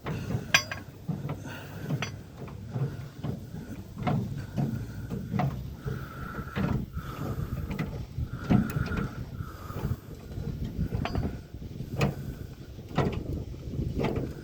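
The under-bed spare tire winch of a 2002 Dodge Ram 1500 being cranked with the long extension tool to raise the empty cable. It makes irregular clicks and clunks, with a few brief squeaks partway through.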